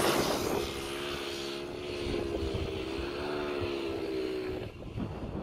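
Single-cylinder 110cc pit bike engine on a converted mobility scooter passing close with a rush of noise, then buzzing steadily as it drives away, its note wavering a little in pitch. The engine note drops away near the end.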